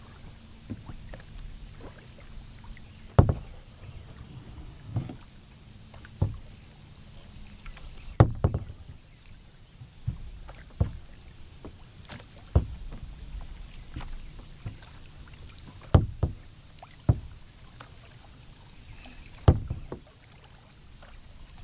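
Kayak paddling: a double-bladed paddle dipping on alternate sides of a plastic sit-in kayak, giving a sharp knock or splash every one to three seconds over a low steady water rush against the hull.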